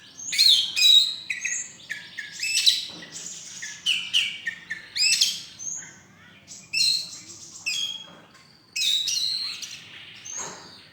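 Oriental magpie-robin (kacer) singing a fast, varied song of short whistled and chattering phrases, with brief pauses between them.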